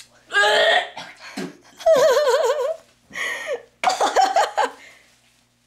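A teenage boy gagging and retching into a plastic bag: several loud throaty heaves, one drawn out with a wavering pitch about two seconds in.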